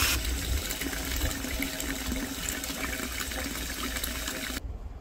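Steady rush of flowing river water with a low rumble underneath; the rush cuts off abruptly near the end.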